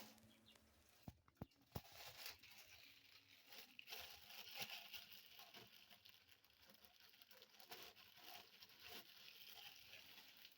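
Near silence: faint crackling with a few sharp clicks between about one and two seconds in.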